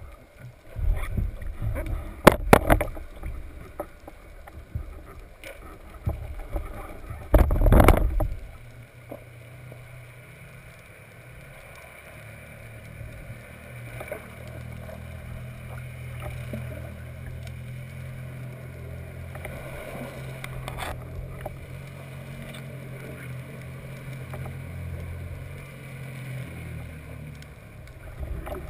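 Muffled knocks and splashes from a speargun being handled at the water's surface, heard underwater, with two loudest thumps in the first eight seconds. After that comes a steady low hum.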